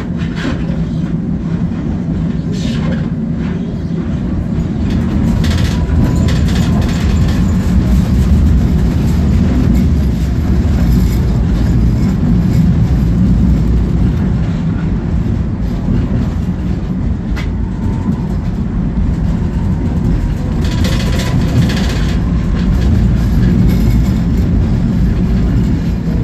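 Tatra T4D tram running along the track, heard from inside the car: a steady low rumble of wheels and running gear, with a few short bursts of rattling noise.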